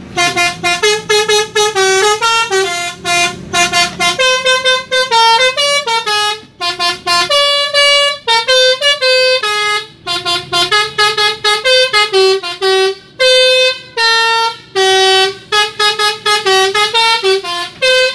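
A truck's multi-tone musical air horn, of the Indonesian 'telolet' kind, playing a tune in quick short notes that step up and down in pitch and repeat in phrases. A low engine rumble runs under it in the first few seconds.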